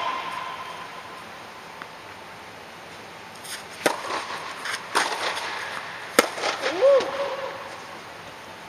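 Tennis ball struck by rackets during a rally: three sharp pops about a second apart, the third the loudest, ringing briefly in an air-dome indoor court. A short vocal call follows the last hit.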